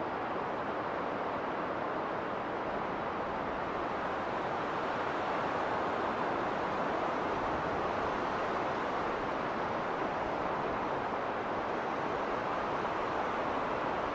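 Winter wind blowing steadily through a snowstorm, an even rushing noise that grows a little louder a few seconds in.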